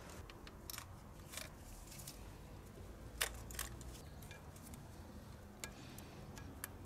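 Plastic electrical plugs being worked off diesel injectors with needle-nose pliers: a few faint, scattered clicks and snaps, the sharpest about three seconds in.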